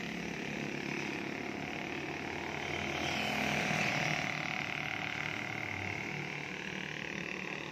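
Street ambience on a wet road, with a small motorcycle engine passing that grows louder around the middle and then fades.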